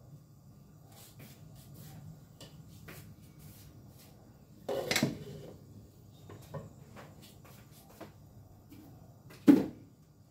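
Light knocks and clicks of kitchen items being handled and moved about, with two louder knocks, one about five seconds in and one near the end, over a faint low hum.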